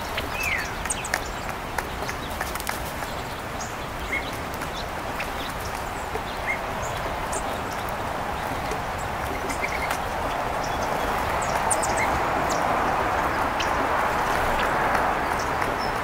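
California quail pecking seed off a wooden picnic table: a loose scatter of quick taps on the boards, with a few short bird chirps. Under it runs a steady rushing background that grows louder over the last few seconds.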